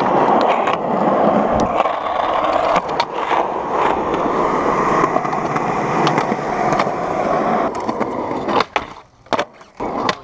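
Skateboard wheels rolling on an asphalt court, a steady gritty rumble, then near the end a quick series of sharp clacks as the board hits the bench ledge and lands back on the ground.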